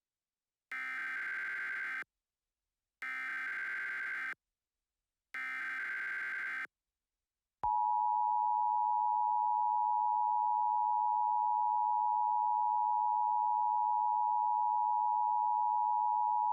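Emergency Alert System tones: three short bursts of SAME header data, then, about a second later, the steady two-tone EAS attention signal, which holds on unchanged.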